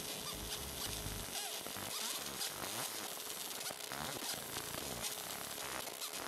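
Laser engraver etching the metal hammer head: a raspy, crackling buzz full of short rising and falling chirps that shift pitch as the beam scans across the design.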